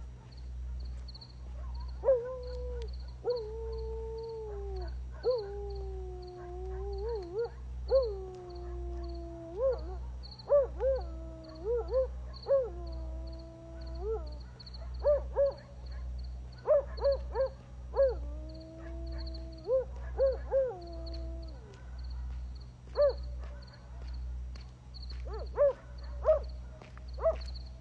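Wild canids howling at night: long, wavering howls that slide down in pitch, with two voices sometimes overlapping, broken by bursts of short yips.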